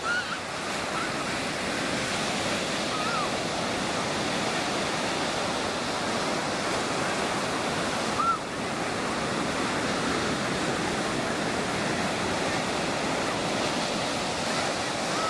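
Ocean surf breaking and washing up a sandy beach, a steady rushing wash.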